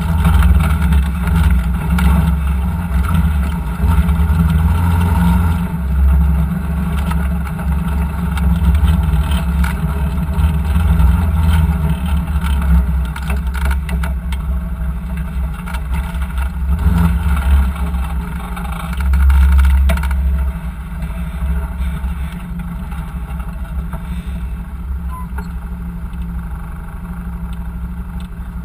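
Engine of a side-by-side UTV running at low trail speed, heard from on board the vehicle. Its level surges and eases with the throttle and settles lower near the end.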